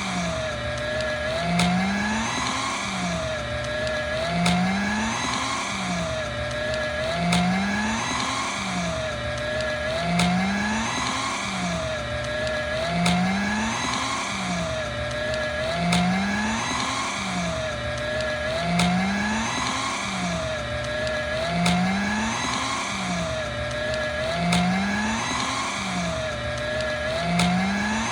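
Electric paper shredder running and chewing through stiff paper, its motor tone dipping and rising again about every three seconds. The same cycle repeats identically, about ten times, as a loop.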